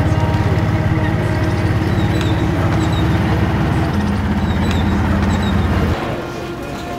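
Heavy vehicle engine running with a fast, low, even throb, cut off abruptly about six seconds in.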